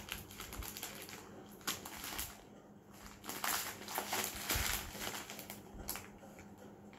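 Plastic packet of dry baby pasta crinkling in irregular bursts of rustling as it is turned over and squeezed in a child's hands.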